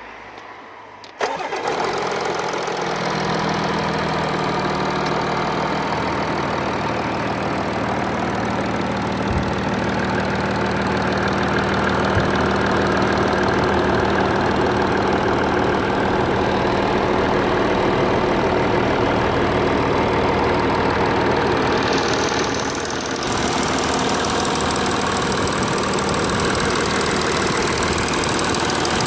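A vehicle engine starts about a second in and then runs steadily at idle, with a rattle.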